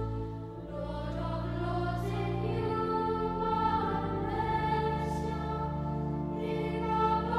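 Sacred choral music: a choir singing slow, long-held chords.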